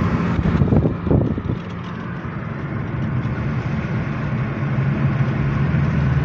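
Car cabin interior while driving: a steady engine hum and tyre and road noise, with a few brief knocks about a second in.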